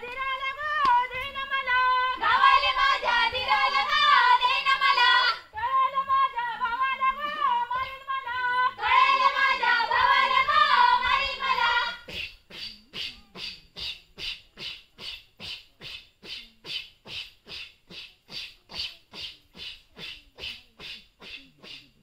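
Women singing a Konkani folk song together in alternating phrases. About halfway through the singing stops and gives way to rhythmic breathy puffs from the dancers' mouths, about three a second, the blown 'fu-fu' of the Goan fugdi dance.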